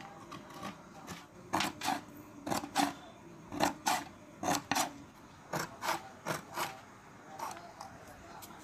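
Hand tin snips cutting through sheet metal: a series of short, crisp snips as the blades close, about two a second.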